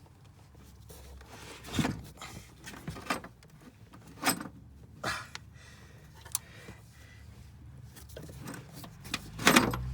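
Irregular metallic clicks and clinks of a ratcheting gear wrench as a nut on the coilover's upper mount is tightened by hand, with a louder clatter near the end.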